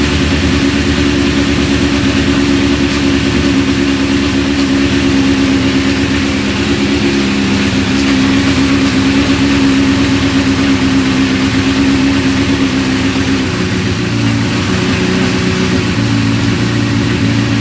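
Honda CBR1000RR Fireblade's inline-four engine running steadily at idle. Its note shifts about thirteen seconds in.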